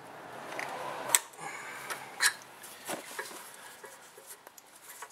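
Hands working in a cramped engine bay, tugging at a spark plug wire under the intake manifold: rubbing and scraping, with a few sharp clicks of parts knocking, the loudest about a second in.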